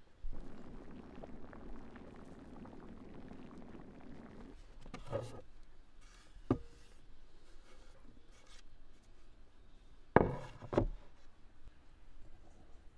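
Food-preparation handling sounds: a rustling, pouring noise for about four seconds, then a few sharp knocks, the loudest two close together near the end.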